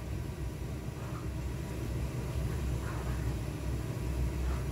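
A steady low rumble from the kitchen stove area. Faint soft sounds come about every two seconds as rolls of thin-sliced pork belly wrapped around perilla leaf and cheese are set one by one into an oiled frying pan with chopsticks.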